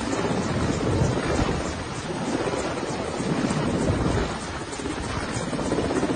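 Helicopter hovering low overhead: a dense, steady rotor and engine noise, with the downwash buffeting the microphone.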